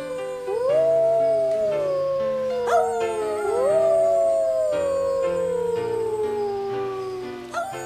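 Canine howls, two long ones, each rising quickly and then sliding slowly down over about three seconds. Behind them is background music of held notes.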